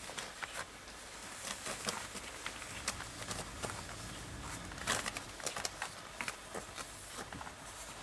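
Irregular small clicks and rustles of newborn Schipperke puppies moving on a cotton blanket, the sharpest click about five seconds in.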